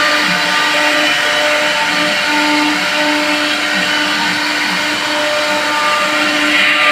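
High-speed CNC router spindle running, a steady whine over a hissing rush, its pitch wavering slightly.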